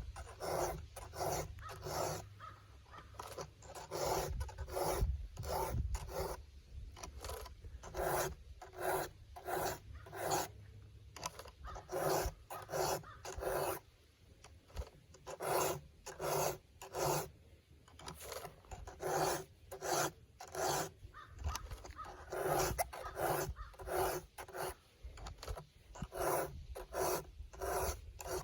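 A file being pushed across chainsaw chain cutters in repeated rasping strokes, about two a second, with short pauses between runs of strokes.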